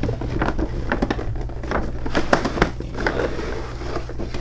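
Plastic packaging being handled: irregular crinkling, rustling and clicking as an action figure is taken out of its box tray.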